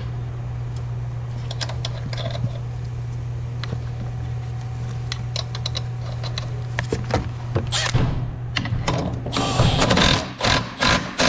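A ratchet fastening nuts on a strut mount: scattered metal clicks over a steady low hum, then from about eight seconds in a rapid run of ratcheting clicks in short bursts that grows louder.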